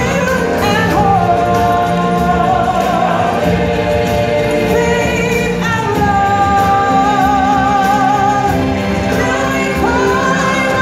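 Stage-show music with singers and a choir, holding long notes with vibrato over a full band backing.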